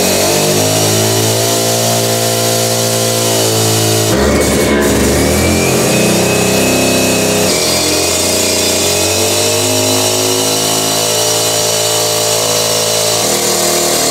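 Gas-powered two-stroke demolition cut-off saw running at high speed while cutting through a cinder block, its engine pitch rising and dropping several times as the blade loads up in the cut.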